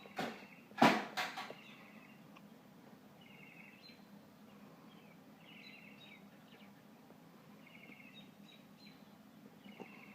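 A few sharp clicks or knocks in the first second and a half, then a small bird chirping in short trilled phrases every second or two over a faint steady hum.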